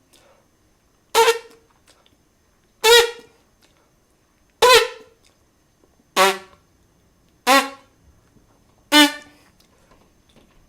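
Trumpet playing six short, separate notes about a second and a half apart, each attacked at once with no hesitation before it; the first three sit higher and the last three lower.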